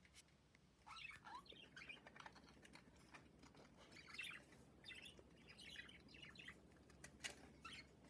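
Budgies chirping and chattering softly in quick, twittering calls, with a few sharp clicks near the end.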